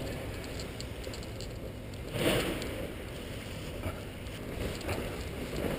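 Steady wind rushing over the microphone, with a brief louder swell about two seconds in.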